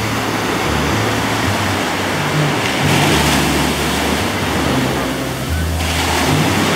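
Small surf breaking on a sand beach and washing up the shore as a steady hiss of foam. It swells with a breaking wave around the middle and drops off suddenly near the end. Wind buffets the microphone in low, gusty rumbles.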